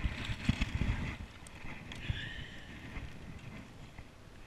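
Hooked smallmouth bass splashing and thrashing at the surface beside an aluminium boat, with a cluster of knocks in the first second or so. It then goes quieter as the fish is lifted from the water.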